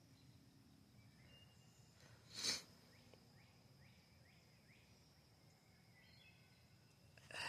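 Quiet outdoor ambience with a faint steady high insect drone and a quick series of faint rising bird chirps. A single short burst of noise cuts in about two and a half seconds in.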